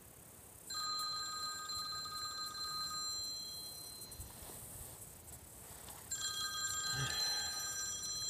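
Cell phone ringing: two rings of a steady electronic ringtone, each lasting a few seconds, the second starting about six seconds in.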